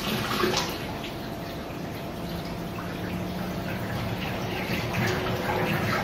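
Washing machine mid-wash: water and laundry sloshing in the drum, with irregular splashes over a steady low hum.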